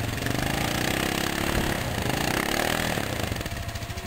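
ATV engine revving under load while one quad tries to tow a stuck Can-Am Outlander free. The pitch climbs and falls twice, then settles back lower, near idle, about three seconds in.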